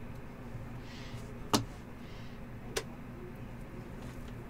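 Two sharp clicks about a second apart, the first the louder, from a plastic card holder knocking as it is handled on the table, with a faint rustle of paper before each.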